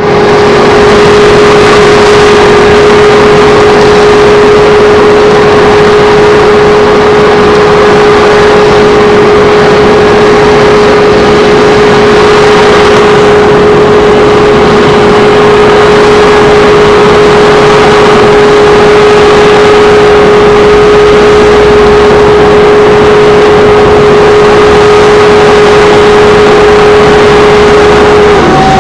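Ready-mix concrete plant machinery running loud and steady: a continuous mechanical din with one steady whining tone, which breaks off and shifts to a higher tone near the end.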